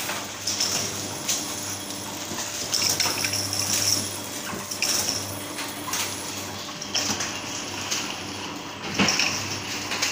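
Four-side sealing packaging machine running: a steady low hum with repeated metallic clacks and clatter from its moving parts, roughly once a second.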